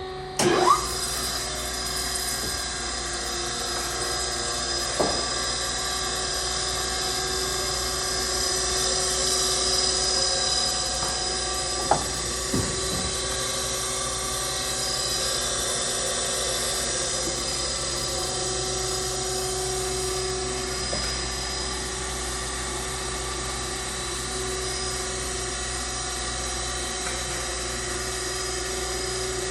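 Brown & Sharpe 618 Micromaster surface grinder running with its coolant pump on: a steady machine whine and hiss that starts suddenly about half a second in, with a couple of brief sharp clicks along the way.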